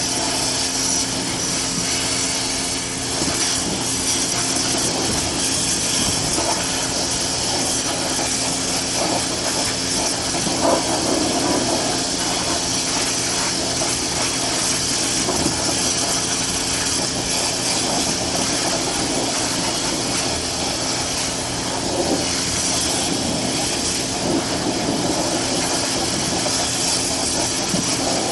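A machine running steadily, a constant low hum under a strong hiss, with a few faint knocks.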